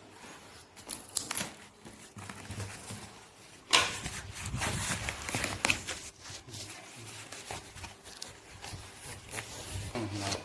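Packaging being opened by hand: irregular rustling, crinkling and tearing with scattered clicks, getting louder from a sudden noisy rip about four seconds in.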